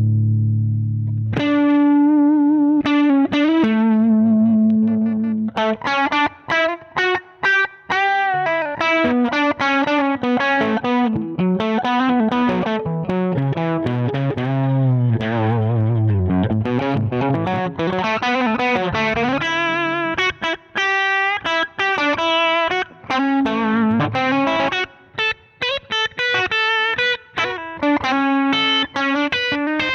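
Electric guitar played through a Zander Circuitry Surplus overdrive pedal, with a crunchy driven tone. A chord rings out at the start, then a lead line of quick single picked notes with bends and vibrato runs on, broken by short pauses.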